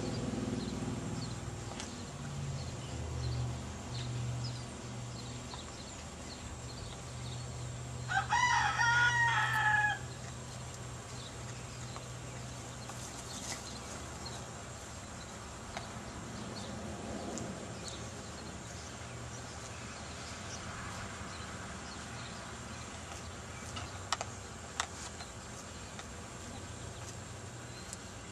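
A rooster crows once, a call of about two seconds some eight seconds in, over a steady low hum.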